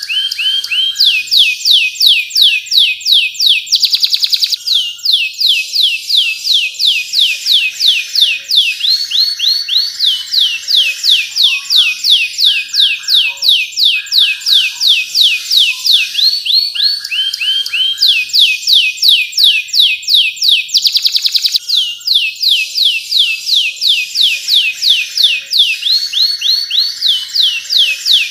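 Domestic canary singing a long unbroken song of rapid trills: fast series of high, downward-sweeping notes several a second, alternating with lower buzzy rolls.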